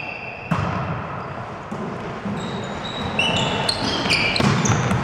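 Volleyball serve and rally: a sharp slap of the ball being struck about half a second in, then several more hits, with sports shoes squeaking on the hall floor.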